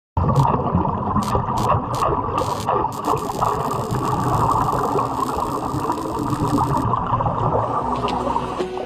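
Underwater welding arc crackling, with a dense rumbling, bubbling noise and several sharp clicks in the first three seconds.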